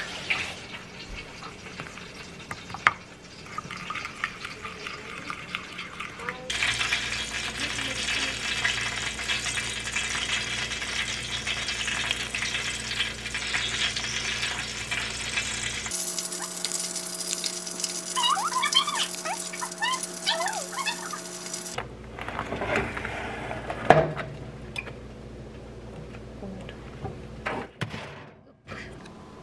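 Pork belly sizzling on the wire rack of an air-fryer oven as it is basted, with the oven's fan humming steadily, heard in several short takes. There are light clinks of handling throughout and a sharp knock about three-quarters of the way through.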